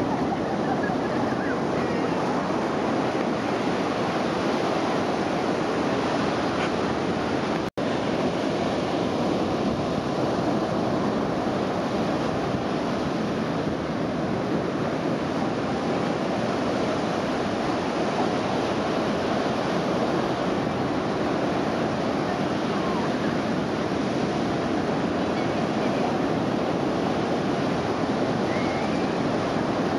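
Sea surf breaking and washing on a sandy beach in a strong onshore wind, a steady roar of waves with wind buffeting the microphone. The sound drops out for an instant about a quarter of the way in.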